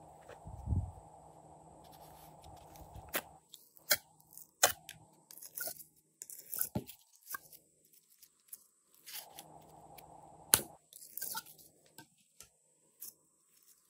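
Blue slime being pulled out of a plastic palette and handled over a tray of glitter slime, with sticky crackling and scattered sharp pops as it stretches and tears away. The loudest pops come just under five seconds in and about ten and a half seconds in.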